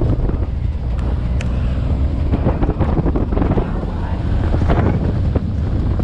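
Wind buffeting the microphone in the open cargo bed of a moving pickup truck, over the low rumble of the truck driving down a rough dirt road, with occasional knocks and rattles.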